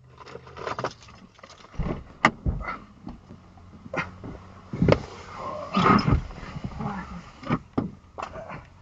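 Irregular knocks, clicks and rustling inside a car's cabin, loudest in a stretch about five to six and a half seconds in.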